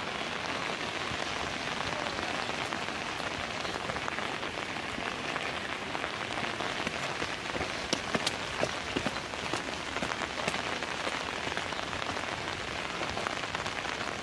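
Heavy rain falling steadily on grass and paths, an even hiss with a few sharp taps of drops scattered through the middle.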